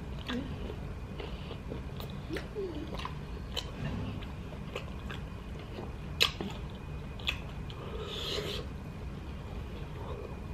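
Mouth sounds of someone chewing a sub sandwich: wet smacks and clicks scattered through, the sharpest about six seconds in, with a short squelchy patch near the end.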